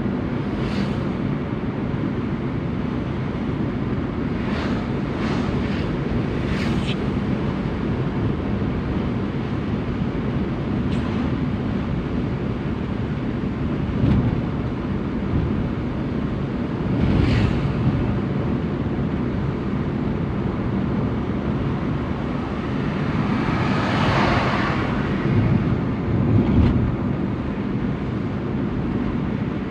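Suzuki APV van's engine running steadily as a low rumble, with wind buffeting the microphone. About three-quarters of the way through, a rushing sound swells and fades over a couple of seconds.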